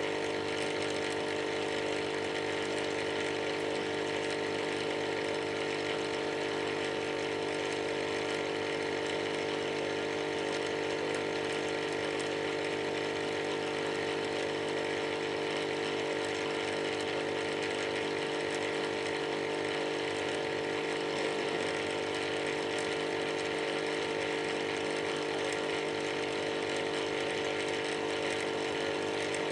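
Aquarium air pump running with a steady buzzing hum over a hiss.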